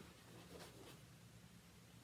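Near silence: a steady low electrical hum, with faint light scratching about half a second in.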